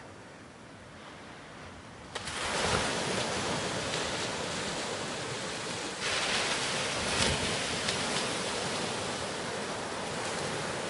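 Ocean surf washing onto a beach as a steady rushing noise, faint at first, stepping up sharply about two seconds in and swelling again about six seconds in.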